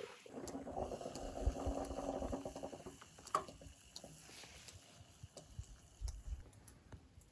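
Stovetop moka pot gurgling and sputtering as brewed coffee bubbles up through the spout over a gas flame, loudest for the first few seconds and then settling. There is one sharp click about three seconds in.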